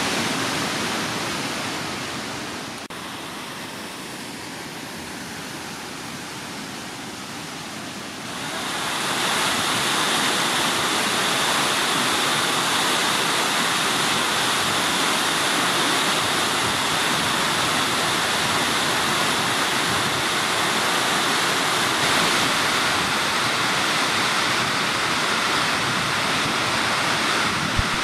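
Waterfall, a steady rush of falling water. It drops lower about two seconds in, comes back up at about eight and a half seconds, and then holds steady.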